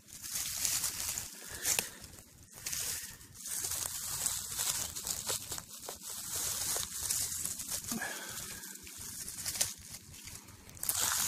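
Dry leaf litter and dead bracken rustling and crackling as a hand moves through it close to the microphone, in uneven stretches with short pauses.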